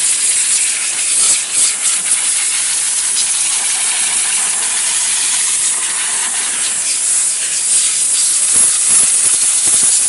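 Compressed-air blow gun hissing steadily as it blows dust off a car engine.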